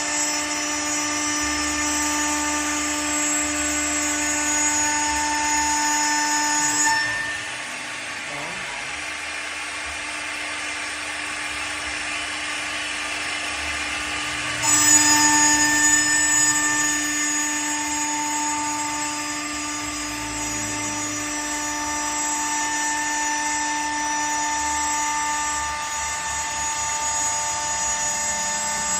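Single-head CNC machine running, a steady whine of several tones over a noisy working sound. The whine cuts out about seven seconds in, leaving the noise, and returns about halfway through.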